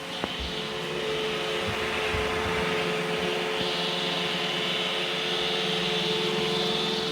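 iRobot Roomba e5 robot vacuum running: a steady whir of its motors with a constant hum, after a short click just after the start.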